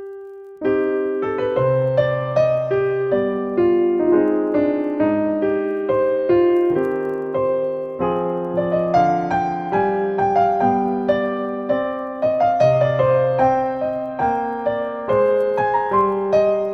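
Solo piano music: one held note fading, then a steady, unhurried run of notes and chords from about half a second in.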